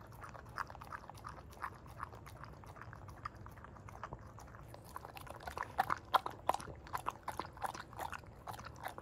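Elderly golden retriever lapping and chewing soft food from a bowl: a run of quick, irregular wet licks and smacks, louder and busier in the second half.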